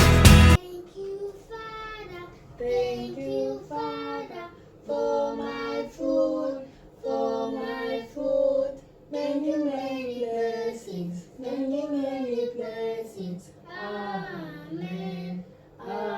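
Loud music cuts off about half a second in. A child then sings without accompaniment, a string of short phrases that rise and fall in pitch with brief pauses between them.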